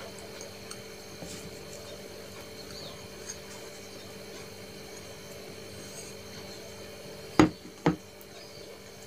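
Faint rubbing and scraping of fingers working mustard prawn paste out of a small upturned bowl onto a plate of rice, then two sharp knocks of the dish about seven and a half seconds in as the emptied bowl is set down.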